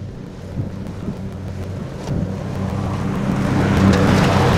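Husqvarna YTH22V46 lawn tractor's V-twin engine running steadily with its mower deck cutting tall grass and brush, growing louder as it approaches from about two seconds in.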